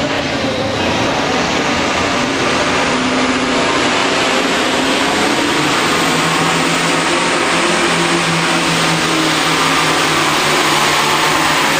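Mack cab-over pulling truck's engine running loud and steady at full throttle, hauling the weight-transfer sled down the track.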